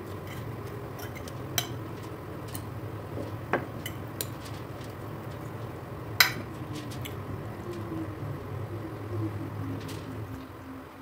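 A metal fork clinking against a plate and the rim of a pot as raw chicken pieces are pushed into the broth: a few sharp clinks, the loudest about six seconds in, over a low steady rumble from the lit gas stove.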